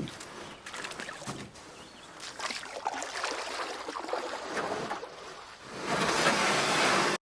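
Water splashing and lapping around a boat on the river, swelling to a louder rush of water about six seconds in.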